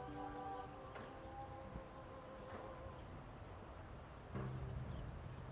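Soft ambient background music with slow held notes, over a steady high chirring of crickets.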